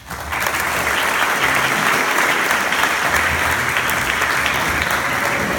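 An audience breaks into loud applause, swelling over the first half second and then holding steady.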